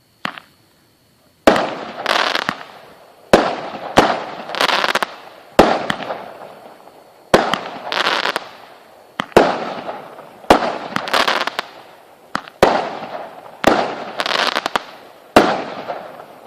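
Fireworks going off: about ten sharp bangs at uneven gaps of one to two seconds, each followed by about a second of crackle that fades out. A small pop comes just before the first bang.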